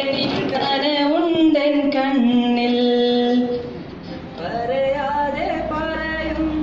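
A teenage boy singing unaccompanied into a handheld microphone, holding long wavering notes. About four seconds in he takes a brief pause before starting the next phrase.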